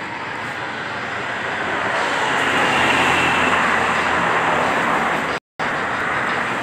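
Electric heat gun blowing hot air steadily to shrink window tint film onto a car's rear glass, growing louder over the first two seconds. The sound cuts out for a moment a little past five seconds in.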